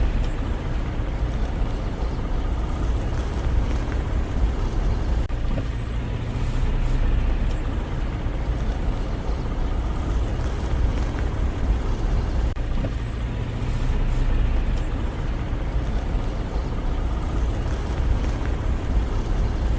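Steady low rumble of a vehicle on the move, road and engine noise with no distinct events.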